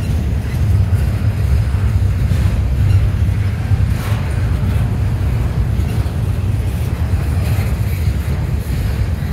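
Double-stack container train rolling past close by: a steady low rumble of the loaded well cars on the rails, with a brief click about four seconds in.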